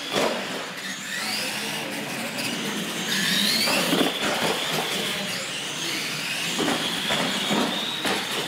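Radio-controlled monster trucks racing on a concrete floor: motor and gear whine rising and falling with the throttle over tyre noise, with knocks as the trucks hit the ramps. The loudest knock comes about four seconds in.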